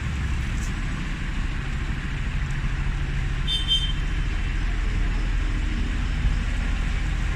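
Steady rumble of road traffic from a busy main road, with a short high-pitched tone about three and a half seconds in.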